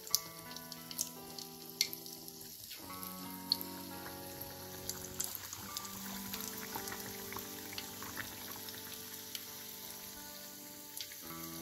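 Batter-coated potato slices deep-frying in hot oil in an iron kadai, sizzling with scattered sharp crackles. Soft background music chords, changing every few seconds, run underneath.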